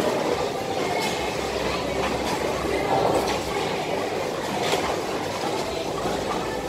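Steady rumbling din of a bowling alley: balls rolling along the lanes and through the ball return, with a few faint knocks.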